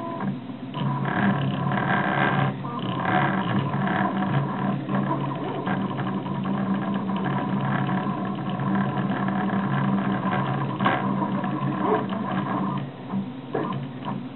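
RepRap Prusa Mendel 3D printer printing, its stepper motors whining in quickly changing pitches as the print head moves, over a steady low hum. Near the end it drops quieter, with a few light ticks.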